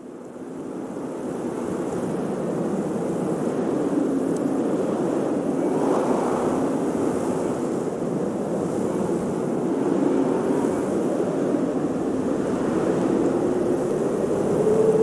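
Blizzard wind blowing steadily in gusts, fading in over the first couple of seconds, with a faint wavering howl that rises in pitch near the end.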